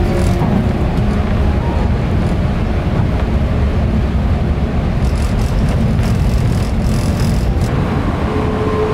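Cabin noise inside a 185 series electric multiple unit under way: a steady low rumble of wheels on rails and running gear, with a stretch of louder hiss and clatter from about five seconds in until nearly eight.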